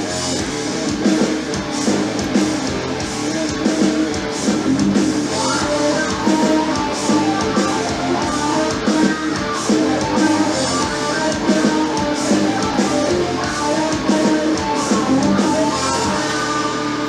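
Slot machine game music: a guitar-led tune with a steady beat.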